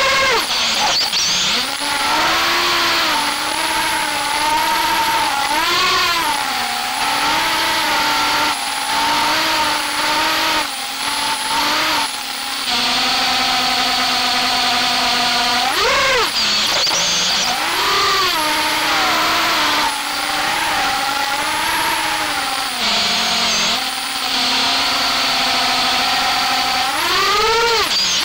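FPV freestyle quadcopter's motors and propellers whining, heard from its onboard camera, the pitch swooping up and down with the throttle. Sharp rising surges come at the start, about halfway through and near the end, with a steadier hover-like stretch in between.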